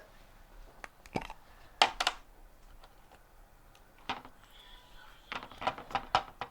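Scattered light clicks and taps of small plastic items being handled at a jug. There are a few single taps, then a quick cluster of clicks near the end.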